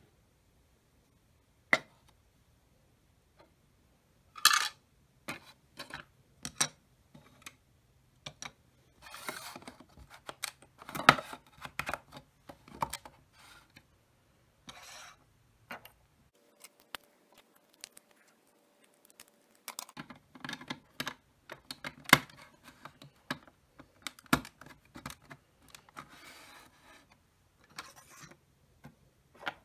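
Lego plastic pieces being handled and pressed together on a table: scattered sharp plastic clicks and clacks, with short rattling bursts of pieces moving.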